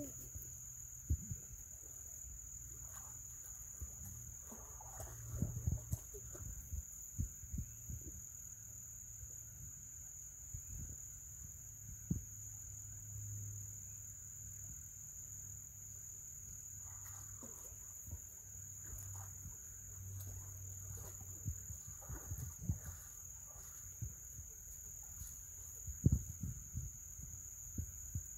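Insects droning steadily in a high-pitched, unbroken chorus. Scattered faint clicks and low knocks come through, with one sharper knock near the end.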